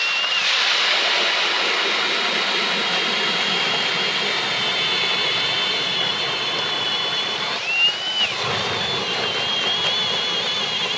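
Power ice auger drilling through lake ice: a steady motor whine over grinding noise as the bit cuts. The pitch briefly rises and falls about eight seconds in as the load on the auger changes.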